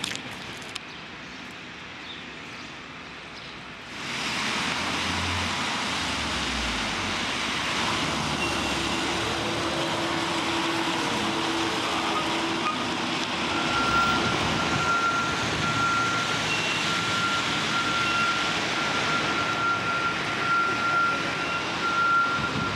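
City traffic on a wet street: a steady hiss of tyres and engines that gets suddenly louder about four seconds in, with a heavy vehicle's low engine rumble soon after. From about the middle on, a steady high-pitched tone runs on with short breaks.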